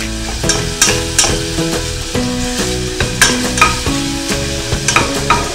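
Chopped garlic and onion sizzling in olive oil in a stainless steel saucepan while a wooden spoon stirs them, with repeated sharp clicks and scrapes of the spoon against the pot. A melody of held notes runs underneath.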